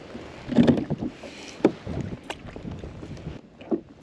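Knocks and clicks of gear being handled aboard a plastic sit-on-top kayak. The loudest cluster of knocks comes about half a second in, with sharp single clicks after it and another knock near the end, over faint wind and water.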